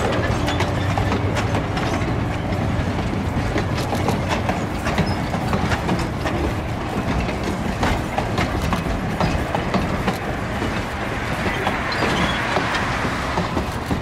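Open-sided excursion passenger cars and a trailing caboose rolling past on the rails: a steady wheel noise with many sharp clicks, easing off slightly near the end as the last car goes by.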